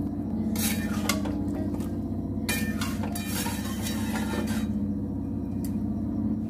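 Long metal spatula stirring and scraping thick ghugni (yellow pea curry) in a metal kadai, with intermittent scrapes and clinks against the pan, over a steady low hum.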